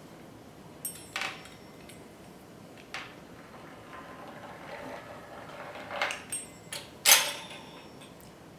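Pizza cutter wheel rolling through sheets of pasta dough to trim the ravioli edges even, with a softer scraping run partway through and several sharp clicks and knocks, the loudest about seven seconds in.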